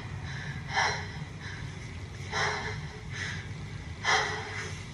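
A person breathing heavily: four loud, breathy gasps, roughly one every second and a half.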